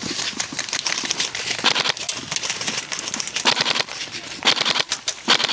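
A dense, irregular patter of sharp clicks and rustling, with no pitched sound.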